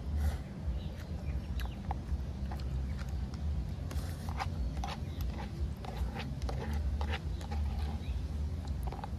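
Close-up eating sounds: dry fried instant cup noodles slurped and chewed, with many irregular wet mouth clicks, over a steady low rumble.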